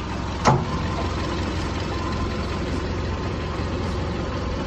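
Truck engine idling steadily, with one sharp knock about half a second in.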